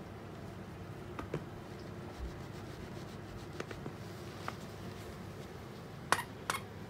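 An otter nosing and pushing a large stuffed dog toy: faint rubbing and light taps over a steady low room hum, with two sharper clicks near the end.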